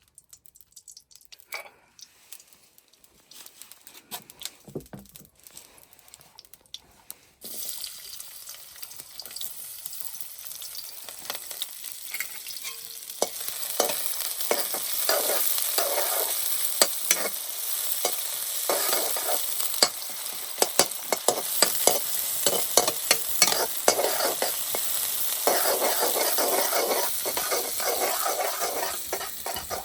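Food frying in a pan, stirred. Light clicks and knocks come first. Then, several seconds in, loud sizzling starts suddenly and keeps going, with scrapes and knocks of the stirring spoon.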